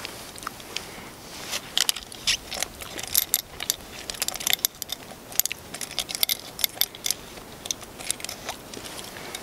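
Cap of a stainless steel bottle being handled and screwed on, giving a run of irregular light metallic clicks and clinks.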